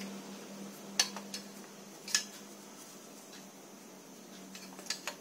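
Sharp clicks and clinks of plastic and metal parts as a Canon iR6000 photocopier's paper pickup roller assembly is handled: two loud ones about one and two seconds in, a few lighter ones near the end. A low steady hum runs underneath.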